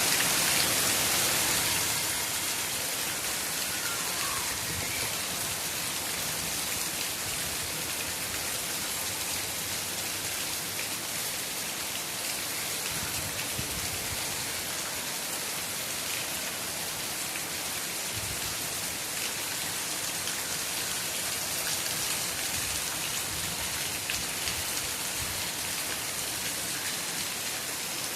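Steady rain falling, an even dense hiss of drops, a little louder in the first two seconds.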